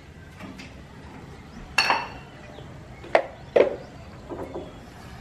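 A few sharp metallic clinks and knocks, the first ringing briefly, from an airgun being handled and brought to bear.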